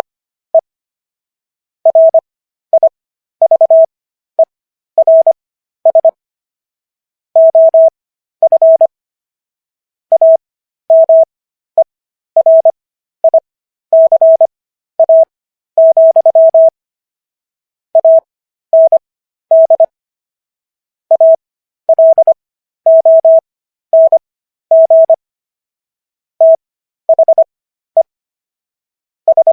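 Morse code practice tone: a single steady beep keyed on and off in short dits and longer dahs, sent at 25 words per minute character speed with Farnsworth spacing stretched to 15 WPM overall, so letters come quickly with wide gaps between them.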